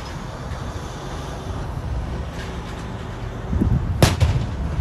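Semi-truck pulling a long oversize trailer carrying a wind-turbine blade slowly past, its engine and running gear giving a steady low rumble, with a single sharp bang about four seconds in.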